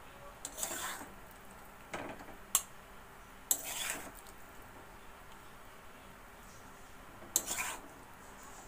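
Metal spoon scraping against a pan while stirring boiled potatoes, in about five short strokes with a sharp clink about two and a half seconds in.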